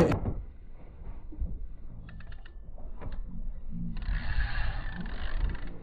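Fishing reel working just after a fish strikes: a few sharp clicks of the reel's gears and ratchet, then from about four seconds in a steady rasping run that lasts under two seconds.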